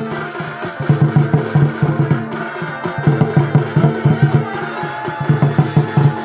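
Purulia Chhau dance music: fast, driving drum beats in repeating phrases, with a melody line above.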